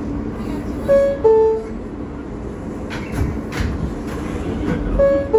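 R160A subway car door chime: a two-note descending ding-dong, a high note then a lower one, signalling that the doors are closing. It sounds twice, about four seconds apart, over the steady hum of the standing train, with two faint knocks in between.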